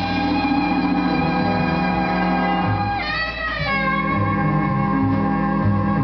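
Instrumental easy-listening orchestra recording: held melody notes over plucked guitar and a stepping bass line, with the instruments sliding in pitch about halfway through.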